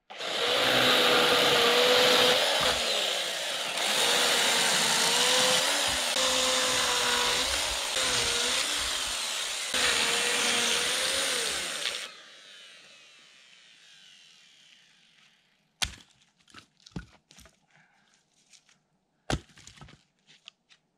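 Chainsaw cutting through wood, its pitch dipping repeatedly as the chain bites into each piece, stopping about twelve seconds in and winding down. Several sharp wooden knocks follow near the end as cut pieces are handled.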